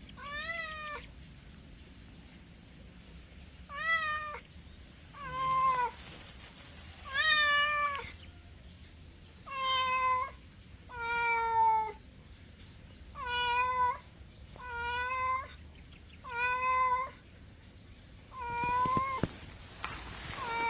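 A domestic cat meowing over and over: about ten drawn-out meows, each under a second long, coming every one to two seconds.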